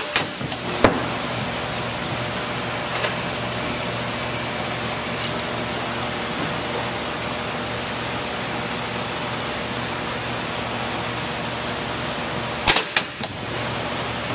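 A corrugated four-bottle wine shipping box with a honeycomb insert, released from a drop tester, hits the floor plate with a sharp thud and a couple of quick knocks as it bounces and settles. This comes once at the start and again near the end, over a steady background hum.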